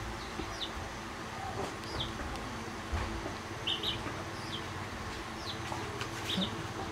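Small birds chirping faintly in the background, short high falling chirps about once a second, over a steady low ambient hum.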